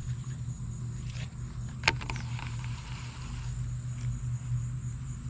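A steady low hum with a thin high whine behind it. About two seconds in, a sharp click and a brief whirr as the bait is cast from a baitcasting reel.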